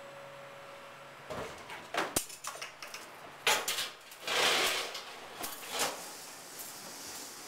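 Stacked wire lunch racks being pulled along with a hand hook, rattling and clanking in a string of sharp knocks, with a longer sliding scrape near the middle.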